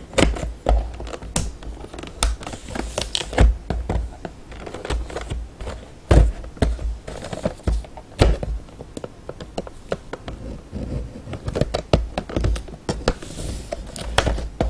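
Metal letter opener cutting and scraping at scotch tape on a clear plastic box with a cardboard top: irregular clicks, taps and scratches, with light thumps as the box is handled.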